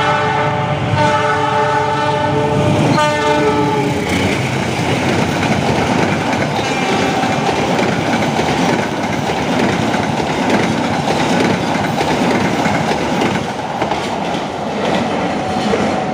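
A CC 206 diesel locomotive sounds its multi-tone horn in a long blast, broken briefly about a second in and ending about four seconds in. The train's coaches then rush past close by with a steady heavy rumble and wheels clattering over the rail joints.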